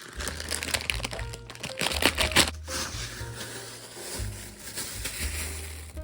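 Background music with low bass notes changing about once a second. Between about one and three seconds in, a run of sharp crackling and crinkling sounds is the loudest thing.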